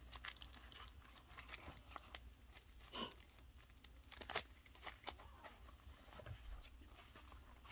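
Faint crinkling and small clicks of thin plastic pill pouches being handled and slid into the slots of a zippered wallet, with a few sharper clicks in the middle.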